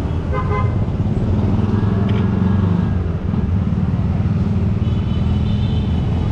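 Street traffic: a nearby vehicle engine running steadily, with a short horn toot about half a second in and a higher-pitched tone about five seconds in.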